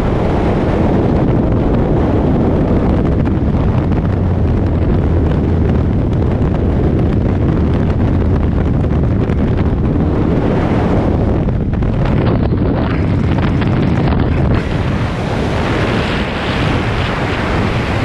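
Freefall wind rushing and buffeting the microphone of a camera falling alongside a tandem skydive. It is loud and steady, easing slightly late on.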